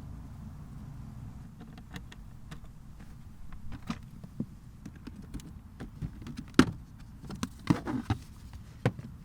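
Scattered small clicks and knocks of hand tools and plastic trim being handled while the steering column's cover is taken off, the sharpest knock about six and a half seconds in and a cluster near eight seconds.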